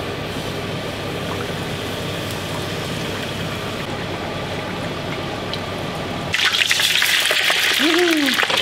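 Battered pollock deep-frying in a saucepan of hot oil, a steady bubbling hiss. About six seconds in it switches suddenly to a louder, crackling sizzle of chips frying, with a brief tone that rises and falls near the end.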